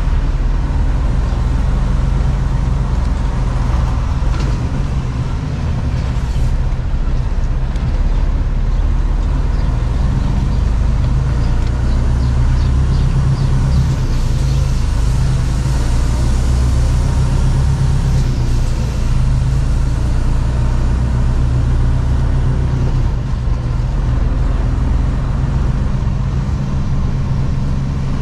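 Mercedes-Benz Actros truck's diesel engine running as the truck drives off, a steady low drone heard from inside the cab, with road noise underneath.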